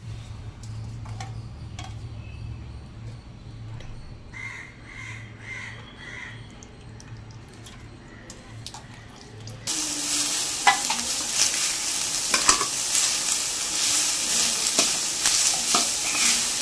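A low hum with faint handling sounds at first, then from about ten seconds in a loud sizzle of crumbled goat blood and shallots frying in a steel pan, with a spoon stirring and scraping through it in small clicks.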